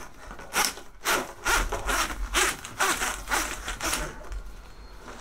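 Taped-together 10mm cables being pushed by hand into 25mm flexible corrugated plastic conduit, rasping against the ribs in short strokes, two or three a second, stopping about four seconds in.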